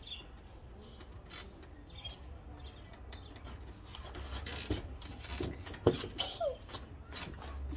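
Scattered rubbing and knocking sounds of movement and handling, busier in the second half with a sharp knock about six seconds in, and a few faint short chirps from pet birds now and then.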